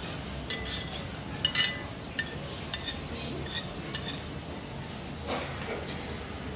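Metal fork clinking and scraping against a ceramic dinner plate: a scatter of short, light clinks over a steady low room hum.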